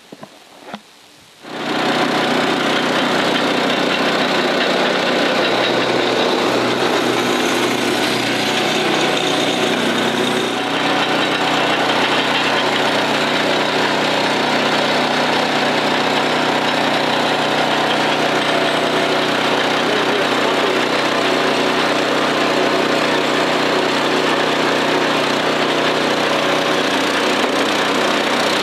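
The 13-horsepower electric-start engine of a 15-ton firewood processor running steadily. It starts abruptly about a second and a half in and dips briefly in level about ten seconds in.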